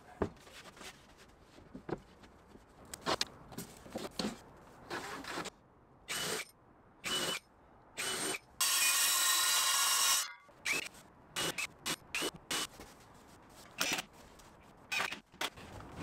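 Cordless drill running into plywood: a few short bursts, then one steady run of about a second and a half near the middle, the loudest sound. Knocks and clatter of plywood panels and tools being handled come before and after it.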